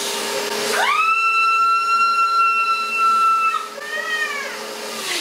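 Vacuum cleaner running with its hose in a plastic trash bag, sucking the air out; about a second in a loud, high whistle rises and holds steady as the bag pulls tight against the nozzle and air squeezes past it. The whistle breaks off about three and a half seconds in.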